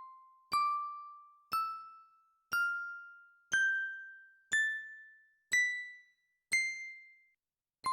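Bell tones struck one per second in a rising scale, each note ringing out and fading before the next. The scale climbs about an octave over eight notes, then starts again from the bottom note near the end.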